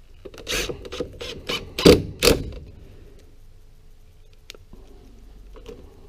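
Makita brushless cordless impact driver driving a screw into wood in about five short trigger bursts during the first two and a half seconds, then it falls quiet.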